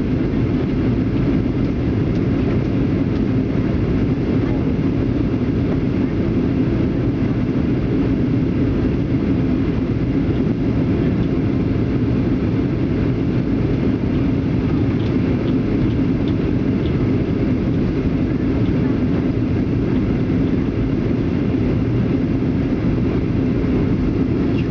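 Cabin noise inside a Ryanair Boeing 737-800 airliner on its descent to land: a steady low rumble and rush of the jet engines and the air streaming past the fuselage, heard from a window seat by the wing.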